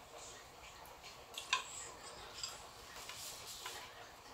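Chopsticks clicking lightly against a metal wok and bowls while noodles are served and eaten: a few scattered sharp clicks, the loudest pair about a second and a half in.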